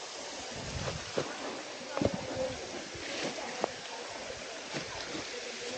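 Steady rush of flowing water, with a few sharp knocks and short scattered sounds over it.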